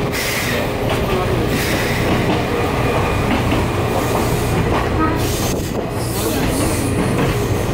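Gakunan Railway electric train running, heard from inside the passenger car: a steady rumble of wheels and running gear on the track.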